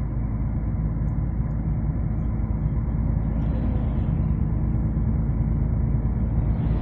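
Steady low engine drone and road noise inside the cab of a moving truck.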